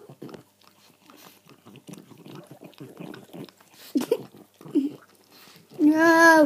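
A dog chewing and licking close to the microphone, with quiet irregular wet clicks and crunches. Near the end a person's voice lets out a loud, long, high note.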